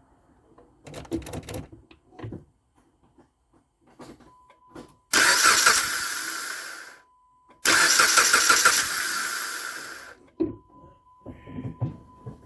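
A 2010 Jeep Compass engine is cranked twice, each time for about two seconds, and fades each time without settling into a run. This is a no-start with a throttle position sensor circuit high fault. A steady high beep, typical of a dash warning chime, sounds alongside.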